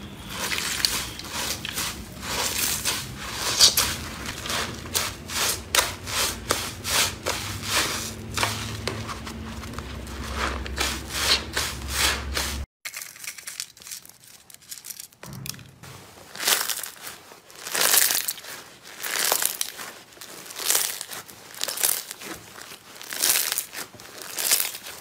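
A wet, soap-lathered foam sponge squeezed and kneaded by hand, with several squeezes a second. After a sudden cut about halfway, a pink slime is pressed between the hands at about one press a second.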